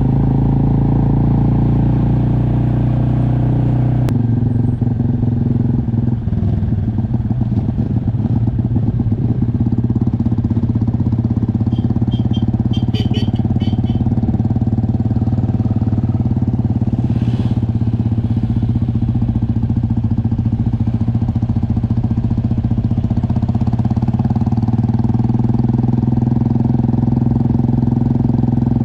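Motorcycle engine running steadily while riding, its tone shifting about four seconds in. A few short high chirps sound around the middle.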